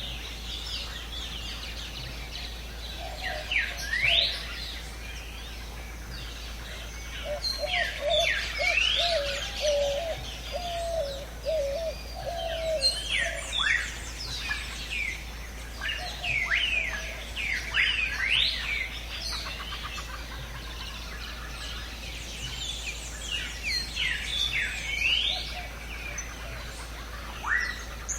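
Several birds chirping and calling, with many quick whistled notes that sweep up and down. A lower, wavering warble runs for several seconds near the middle.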